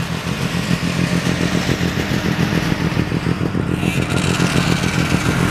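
Vintage snowmobile engine running steadily with a fast, even pulsing beat.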